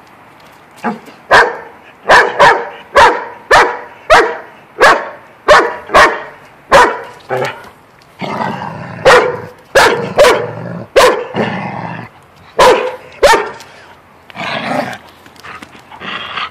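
A dog barking in a long run of sharp barks, about one and a half a second, from about a second in until a few seconds before the end.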